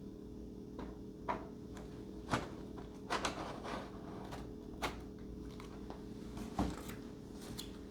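Scattered clicks and knocks of model-plane parts being handled and fitted, about six in all, the loudest a little after halfway, over a steady low hum.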